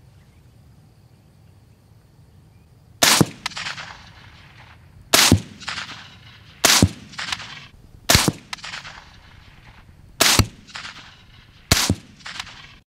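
Six shots from a suppressed LWRC Six8 rifle in 6.8 SPC with a YHM Titanium Phantom suppressor, firing supersonic ammunition. The shots come about one and a half to two seconds apart, each a sharp report followed by a short echo that dies away.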